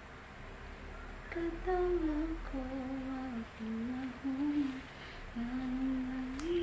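A woman humming a slow, wandering tune with long held notes, starting about a second in.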